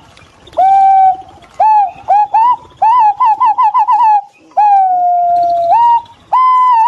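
Green pigeons giving their fluting, whistled calls: clear short notes that swoop up, a quick run of about six notes in the middle, then a long whistle that slowly falls before rising again near the end.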